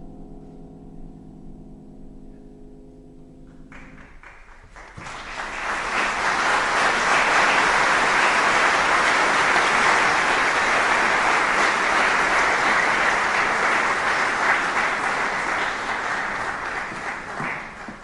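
A low piano chord rings and fades, then audience applause breaks out about four seconds in, swells and carries on steadily before dying down at the end.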